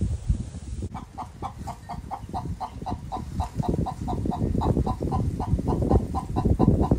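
A rapid, even series of short pitched calls, about five a second, over loud irregular rumbling noise.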